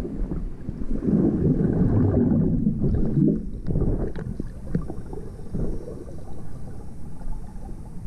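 Muffled underwater sound of sea water churning and bubbling around a submerged camera, with a louder surge of churning from about one to three seconds in, then a softer low rumble.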